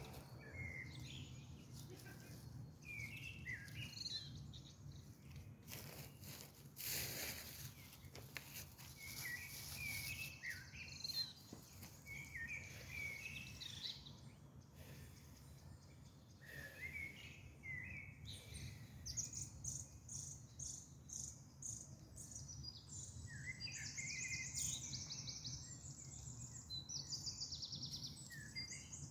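Songbirds chirping and singing in short phrases, with high, fast trills coming in about two-thirds of the way through. A few sharp pops and crackles of a wood fire break in near the middle, over a steady low background hum.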